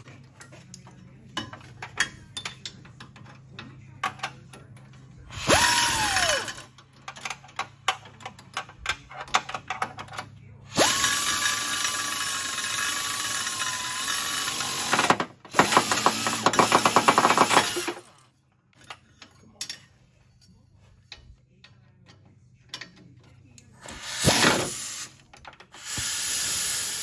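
Pneumatic air ratchet running in five bursts, the longest about four seconds, spinning the exhaust bolts while test pipes are fitted to a Nissan 370Z. Light metal clicks and clinks of tools and bolts come between the bursts.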